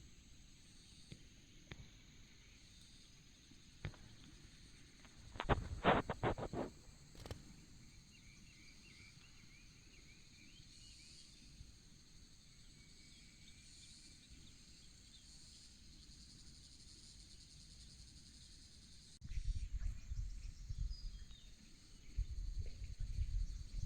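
Insects droning steadily in a rural outdoor background, with a quick cluster of clicks about six seconds in and low rumbling in the last few seconds.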